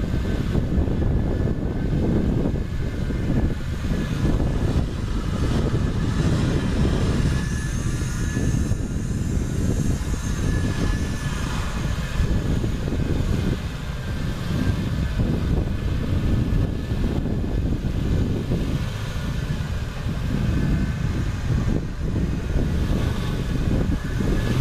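Nissan Safari 4WD's engine running steadily under load as the vehicle, bogged in mud, claws slowly forward through the mud hole.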